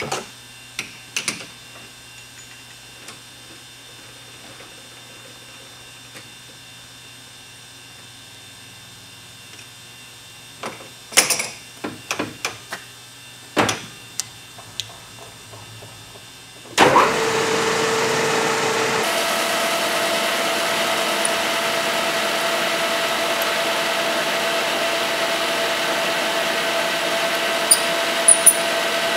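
Metal clinks and knocks from a chuck key tightening a pistol barrel into a metal lathe's three-jaw chuck. About 17 seconds in, the lathe starts up and runs steadily with an even tone.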